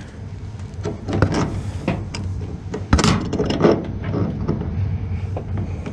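Scattered clicks, scrapes and knocks from a water supply hose coupling being hand-tightened onto a washing machine's inlet fitting, with the loudest knock about three seconds in. A low steady hum runs underneath.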